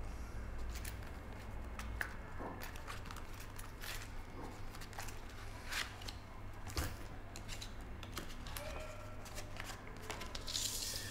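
Faint handling sounds of a leather wallet being opened and searched, small clicks and rustles, then a folded sheet of paper being unfolded, with a louder paper rustle near the end, over a low steady hum.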